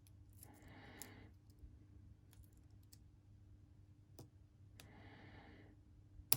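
Faint scattered clicks of a lock pick working the pins of a Lockwood 356S63 padlock under light tension, with a sharper click near the end. Two soft hisses of about a second each come in between.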